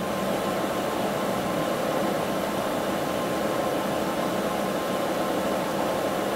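Milling machine spindle running steadily with a drill bit in it, a constant hum with a faint high steady tone over it.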